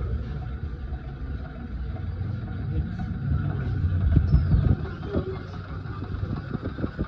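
Depuley DC-motor ceiling fan running, with noise from its bearings, which are defective less than a month after installation. A steady low rumble dominates and swells about four seconds in.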